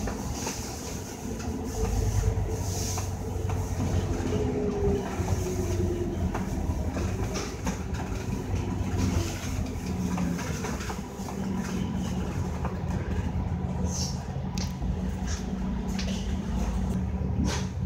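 Scania K310UD double-decker bus running on the road, heard from inside the cabin: a steady low drone from its five-cylinder diesel and drivetrain. In the first few seconds a whine slides slowly in pitch as the bus changes speed, and a few short rattles or clicks come near the end.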